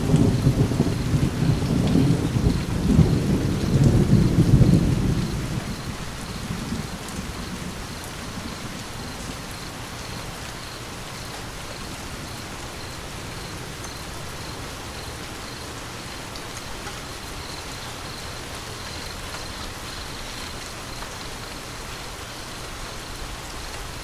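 Steady rain with a long roll of thunder rumbling through the first five seconds or so, then fading out under the rain.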